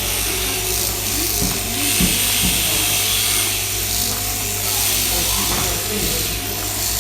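Electric sheep-shearing handpiece running with a steady buzz as it cuts the fleece from a lamb.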